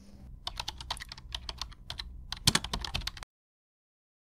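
A quick, irregular run of sharp clicks and taps, several a second, over a faint low rumble. It cuts off abruptly about three seconds in.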